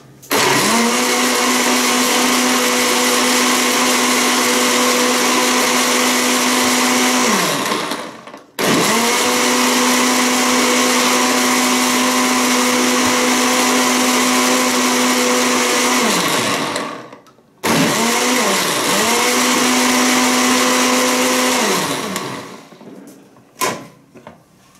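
Electric blender running in three pulses of about eight, eight and five seconds, each spinning up quickly to a steady whine and winding down when switched off, blending dates and milk into a smooth shake. A few light clicks near the end as the jar is handled.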